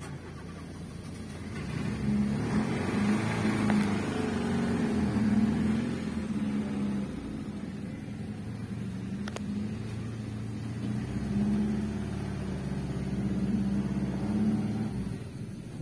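Fiat 147's small engine running under throttle as the car reverses and moves off, getting louder about two seconds in and rising and falling with the accelerator. A single sharp click about nine seconds in.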